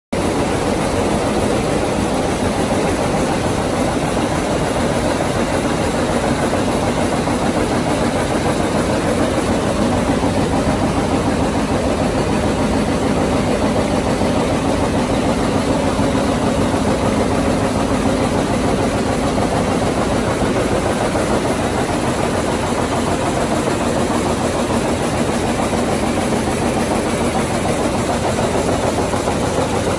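Vamatex P1001 rapier loom with its dobby running steadily at speed, a loud, fast, even rhythm of machine beats.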